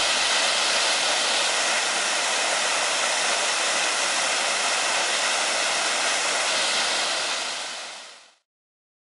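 Steady rush of a waterfall's cascading water, fading out about eight seconds in.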